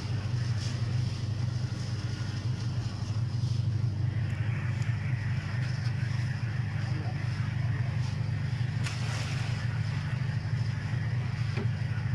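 An engine running steadily with a low, even drone, with a short knock or clatter about nine seconds in.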